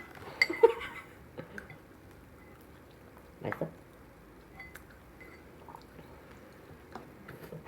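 Eating sounds at a table: a few quick clinks of a spoon on a dish in the first second, then quiet chewing and scattered faint ticks.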